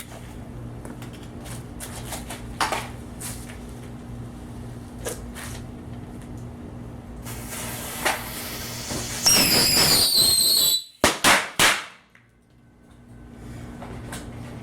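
Small fireworks packed into a lemon going off from a lit fuse. A hiss starts about seven seconds in and grows into a loud whistling spray, then three sharp bangs follow in quick succession about eleven seconds in.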